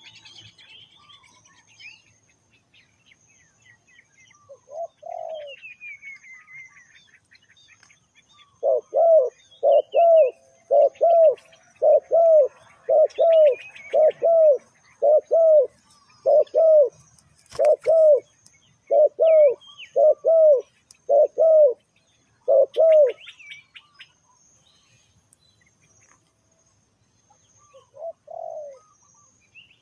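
Spotted dove cooing: a single coo, then a fast run of more than a dozen coos at about two a second, then another single coo near the end. Faint chirps of small birds and a sharp click partway through the run.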